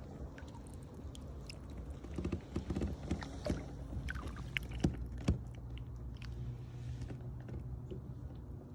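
Small knocks and handling clatter in a fishing kayak, with two sharper knocks near the middle over a steady low background.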